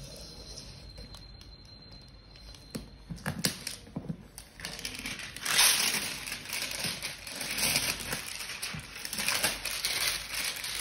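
Plastic shrink wrap being torn and peeled off a cardboard gift box, crinkling and crackling. It starts about three seconds in and gets louder from about halfway.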